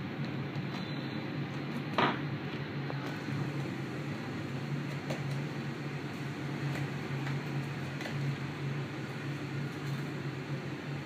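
Small tool clicks and taps on an Asus Zenfone 5 as it is taken apart, with one sharp click about two seconds in and a few fainter ones later, over a steady low hum.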